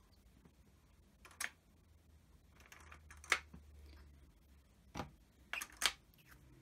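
A handful of short, sharp plastic clicks and taps spread over several seconds, the loudest about three seconds in: Stampin' Up! ink pads being handled and set down on the craft table.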